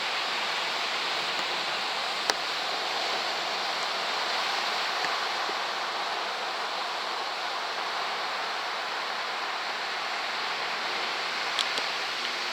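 Steady rush of large typhoon-swell surf breaking along the shore. There is one sharp click about two seconds in and a couple of faint clicks near the end.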